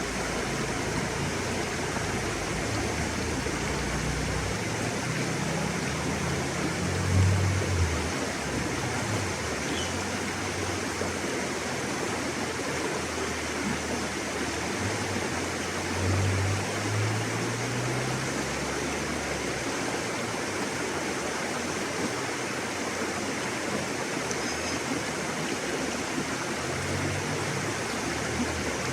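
River water rushing steadily, an even hiss of flowing water, with a deeper rumble swelling up twice, about seven and sixteen seconds in.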